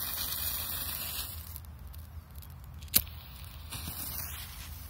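Lit fuse of a Kometa 'Osa' firecracker burning with a hiss, strongest for the first second or so and flaring again briefly near the end, with one sharp click about three seconds in.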